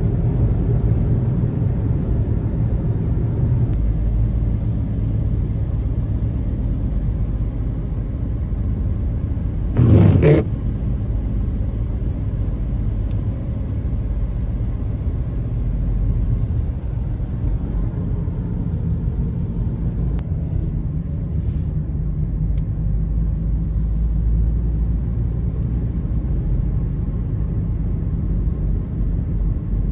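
Steady low rumble of a vehicle driving on a wet road, heard from inside the cabin: tyre and engine noise. About ten seconds in, one brief, louder burst of noise.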